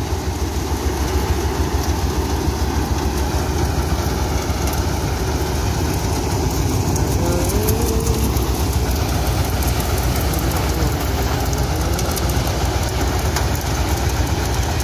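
Engine-driven mustard and pulse threshing machine running steadily while dry mustard plants are fed into it, a continuous even mechanical drone.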